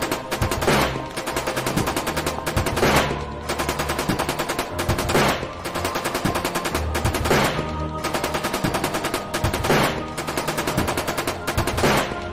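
Machine gun sound effect: rapid, continuous automatic fire, swelling louder about every two seconds.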